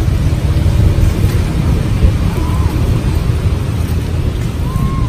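Wind buffeting the microphone: a loud, steady low rumble. Two faint short arched calls rise and fall, one about halfway through and one near the end.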